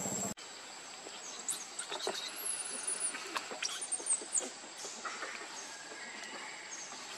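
Outdoor ambience of small birds chirping and twittering in short high-pitched calls, busiest in the middle, over a steady high whine and light rustles and ticks. A brief call at the very start cuts off abruptly.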